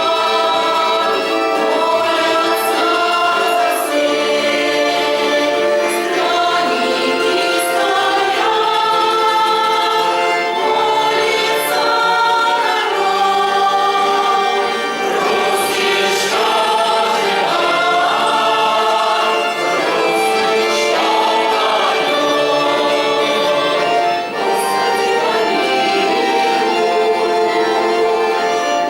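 Russian folk choir singing, with long held notes.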